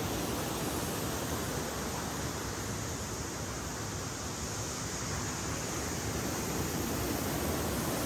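Waterfall pouring into a deep plunge pool: a steady, unbroken rush of falling water.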